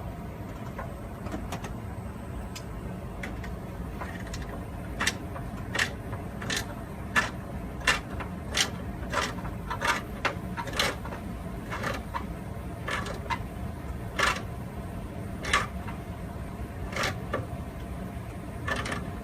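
Metal tool clicking against water heater supply line fittings as they are tightened: a run of sharp, short clicks at an uneven pace of roughly one or two a second, starting about five seconds in, over a steady low rumble.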